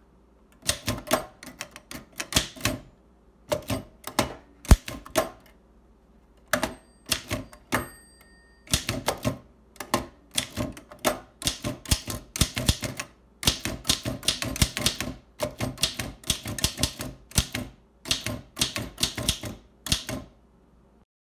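1887 Caligraph No. 2 typewriter being typed on: runs of sharp key strikes clacking against the platen, broken by short pauses.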